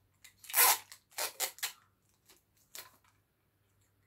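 Wrapping paper rustling and crackling in short bursts as a small gift box is wrapped by hand: one loud burst about half a second in, a quick run of three just after a second in, then a couple of fainter ones.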